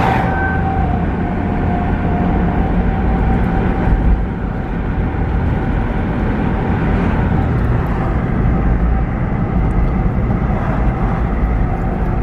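Steady car road and engine noise from inside the cabin while driving. A distant outdoor tornado warning siren's steady tone dips slightly in pitch and fades out within the first couple of seconds.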